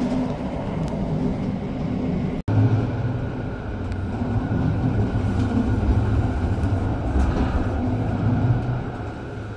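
Rhaetian Railway narrow-gauge train running, a steady low rumble of the wheels on the rails. The sound drops out for an instant about two and a half seconds in, then comes back with a deeper, louder rumble.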